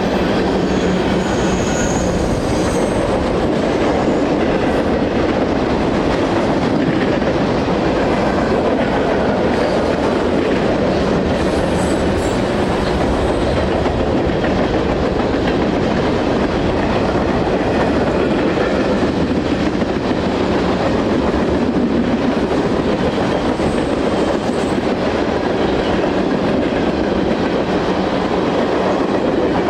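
Freight cars of a long mixed freight train rolling past at close range: a steady, loud rumble and clatter of steel wheels on rail, with a few faint, brief high wheel squeals.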